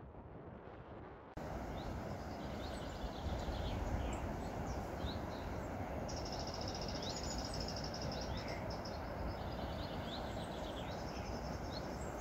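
Outdoor wind noise with several small birds singing: scattered short chirps and a high, buzzy trill that comes and goes.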